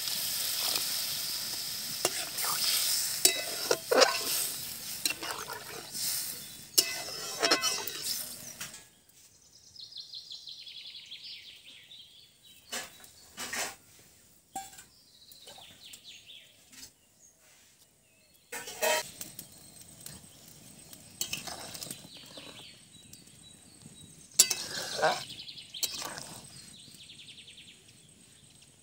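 Egg and brinjal curry sizzling in a hot aluminium pot as water is poured in and a steel spatula stirs it, with sharp metal clinks. About nine seconds in the sizzle drops away, leaving scattered clinks and knocks of steel dishes and utensils.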